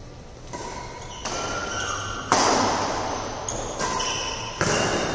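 Badminton rally: a racket strikes the shuttlecock about once a second, a sharp hit each time with a long echo from the hall, the loudest hit about two seconds in.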